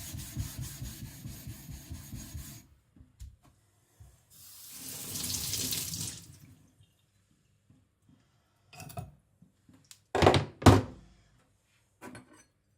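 Quick rhythmic scrubbing strokes on a wet whetstone for the first couple of seconds, working up fresh abrasive slurry on a clogged stone. Then a few seconds of running water, a few small clicks, and two loud knocks near the end.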